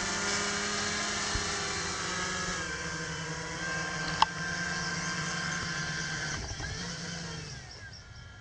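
Hexacopter drone's six electric motors and propellers buzzing steadily as it descends and lands, with a sharp click about four seconds in; the motors then spin down, the pitch sliding, and stop near the end.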